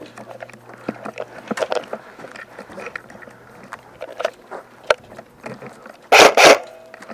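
Footsteps and gear rustling, with scattered light clicks, then two short, loud bursts of airsoft gun fire about six seconds in.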